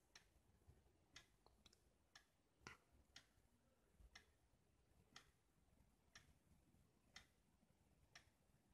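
Faint, evenly spaced ticking about once a second over near silence.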